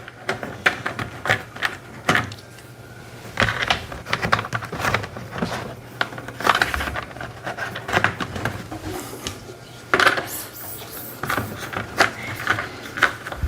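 Irregular clicking and rattling of small plastic toy-workbench parts and nuts being picked through and handled during assembly.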